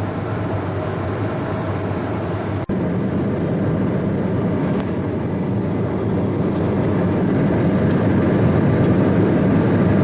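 Aircraft engine droning steadily during flight, broken by a brief dropout about two and a half seconds in.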